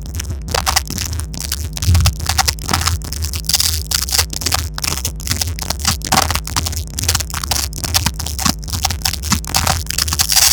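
Loud, harsh crackling noise made of dense irregular clicks over a steady low hum.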